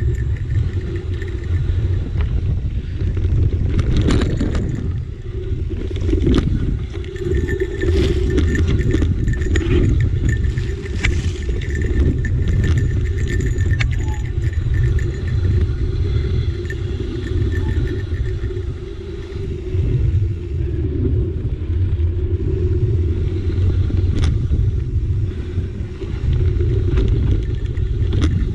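Mountain bike riding down a dirt singletrack, heard from a camera on the bike: a steady heavy rumble of tyres and trail vibration, with scattered rattles and knocks as the bike hits bumps.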